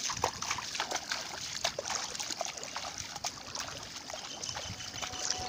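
Shallow water sloshing and splashing around legs wading through it, with irregular small splashes.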